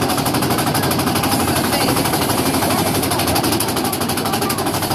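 Mine-train roller coaster car on the Thunder Mountain ride clattering along its track in a rapid, even run of clicks, heard from inside the car.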